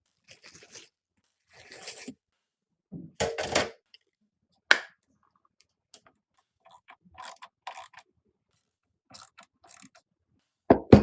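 Irregular clicks, scrapes and small knocks of computer parts being handled and fitted together, with a sharp click about five seconds in and a heavier knock near the end.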